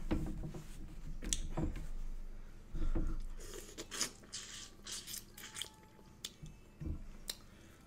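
A person biting into and chewing a grilled shrimp: irregular wet mouth clicks and small crunches.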